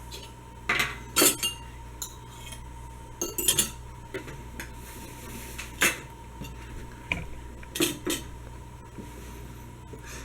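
Metal utensils clinking and scraping against dishes, a handful of short, separate clatters a second or two apart, as the pumpkin bars are cut and served.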